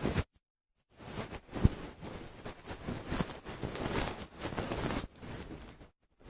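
Binaural ear-cleaning sounds: something soft and fluffy rubbing and rustling right against the microphone's ear, meant as a dog's tail tickling the entrance of the ear. The rustling comes in uneven strokes, with one louder bump a little before two seconds in.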